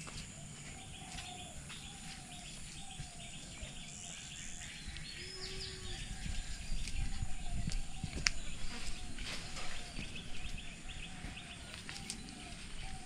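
Pond-side ambience: a bird repeating a short call note about twice a second, over faint high chirping and clicking. A louder low rustle and rumble swells in the middle, with one sharp click.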